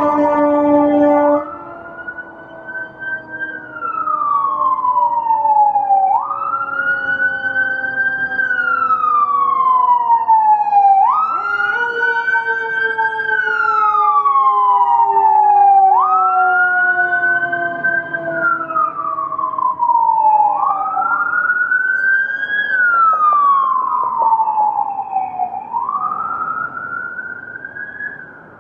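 Emergency vehicle siren wailing, its pitch climbing quickly and then falling slowly about every five seconds, with a horn blast in the first second and a half. It fades near the end.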